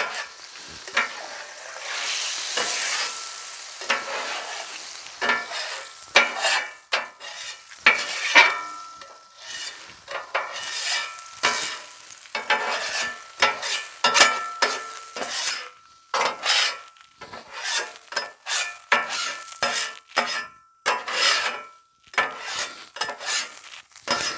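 Seltzer water hissing and sizzling on a hot steel griddle top, then a flat metal griddle scraper pushed across the wet surface in many short, separate strokes from about five seconds in.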